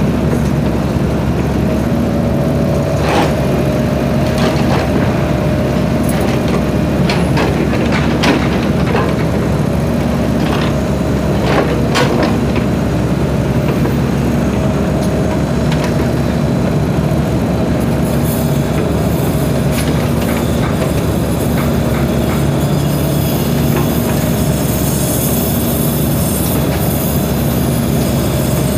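SANY compact hydraulic excavator's diesel engine running steadily as it digs, with its hydraulic tone repeatedly coming and going as the boom and bucket work. Scattered sharp knocks sound through the first half, and a high hiss joins a little past the middle.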